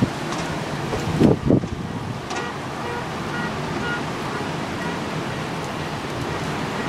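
Storm floodwater rushing down a street under wind, a steady wash of noise, with faint repeating car-alarm beeps behind it. Two brief low buffets come about a second in.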